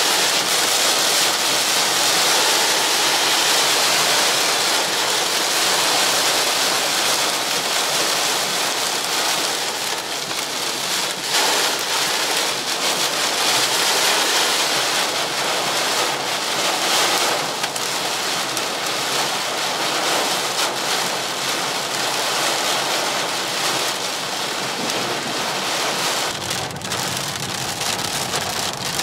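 Heavy rain beating on a car's roof and windscreen, heard from inside the cabin while driving: a steady, dense hiss.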